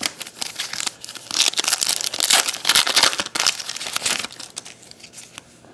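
Foil trading-card pack wrapper crinkling loudly as it is torn open and handled, for about four seconds before dying away.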